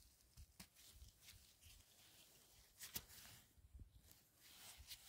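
Near silence, with a few faint clicks and rustles from gloved hands cutting and handling a false morel mushroom with a knife. The clearest click comes about three seconds in.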